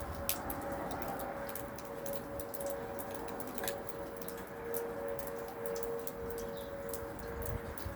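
Distant outdoor warning sirens sounding together, including a Whelen WPS 2906 electronic siren on its test: two steady tones at slightly different pitches, the lower one growing louder about two seconds in.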